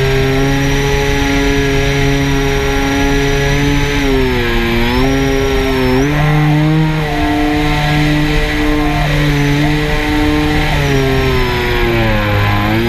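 FPV drone's motors and propellers buzzing steadily, dipping in pitch and coming back up about four seconds in and again near the end.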